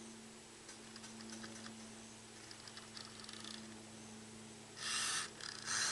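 Light clicks and ticks from a vintage battery-powered RC toy truck being handled and tried, over a faint steady hum. Near the end come two short, loud bursts of rasping noise.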